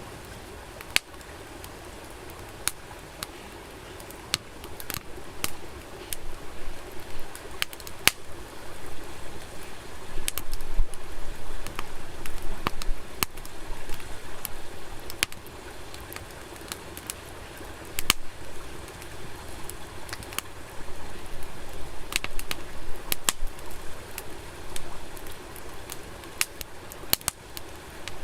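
Wood campfire crackling, with sharp pops and snaps at irregular intervals over a steady hiss.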